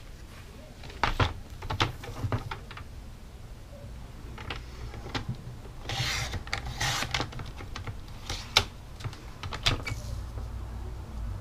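Inspira sliding paper trimmer cutting a sheet of patterned paper: a short scraping slide of the cutter head along the rail about six seconds in, among clicks and taps of the paper and trimmer being handled.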